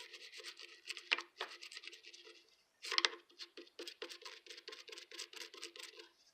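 Quick scratchy scrubbing strokes on a vintage sewing machine's body while grime is scrubbed off with waterless hand cleaner, about five strokes a second, with a short pause midway and stopping just before the end.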